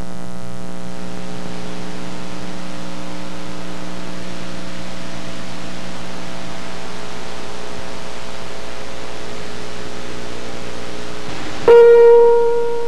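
Steady electrical hum with a stack of overtones. Near the end a piano note is struck and rings on, the start of piano music.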